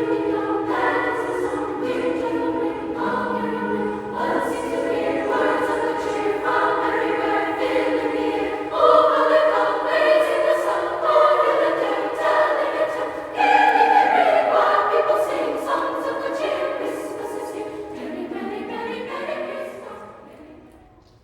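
Choir singing a slow, sustained Christmas song, fading out near the end.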